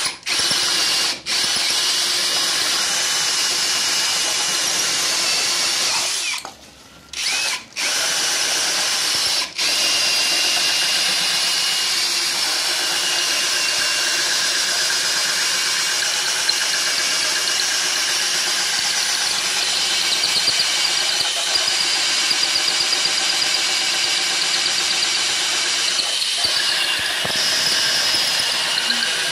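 Cordless drill running at speed, boring into a coconut shell, with a few short stops about a second in and between about six and nine and a half seconds in, then running steadily.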